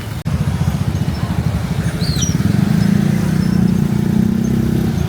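Motorcycle engine running close by, growing louder over the first few seconds, amid street traffic.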